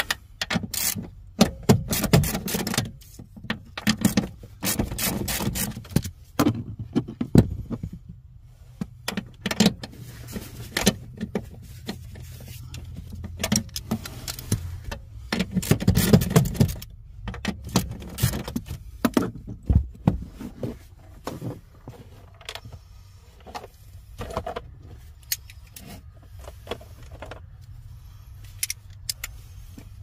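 Ratchet wrench on a socket extension clicking in irregular bursts as it loosens the 10 mm bolts holding a clutch pedal bracket, with metal-on-metal clinks from the tool and bracket.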